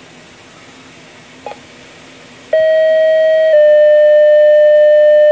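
Two-tone sequential fire-department page played through a Kenwood TM-281 VHF mobile radio's speaker: a steady tone for about a second, then a slightly lower tone held on, starting about halfway in. A brief blip comes about a second and a half in.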